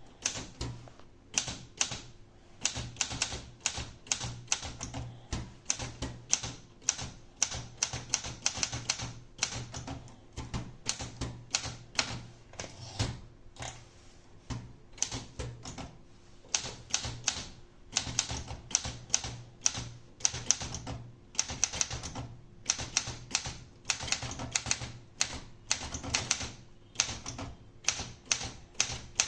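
Olympia SM9 manual portable typewriter being typed on: quick runs of sharp key strikes with short pauses between them.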